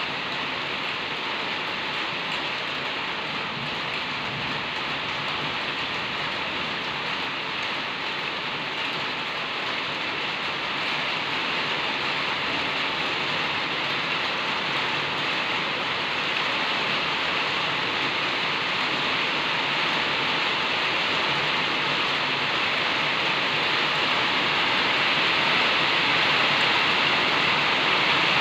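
Steady hiss of noise with no distinct knocks or calls, slowly growing louder.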